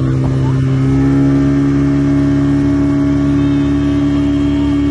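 A 40-horsepower outboard motor runs at speed, towing a banana boat. It makes a steady drone that rises slightly in pitch about a second in.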